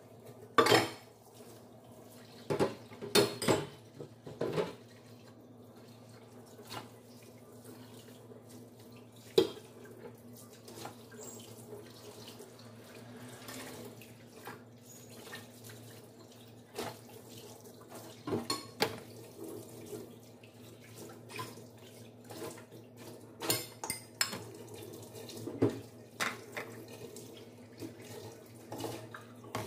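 Dishes being washed by hand at a stainless steel sink: the tap runs steadily while plates and bowls clink and knock against each other and the sink, with a cluster of loud knocks in the first few seconds and more scattered throughout.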